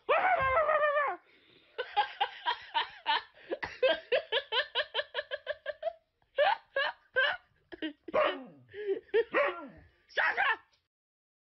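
A dog barking and yipping in quick runs of short high calls, about four or five a second, after a longer wavering call at the start, with a few more scattered barks toward the end.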